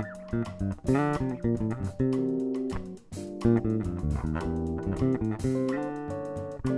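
Instrumental Brazilian jazz band playing, with an electric bass guitar line prominent over a drum kit keeping time on the cymbals.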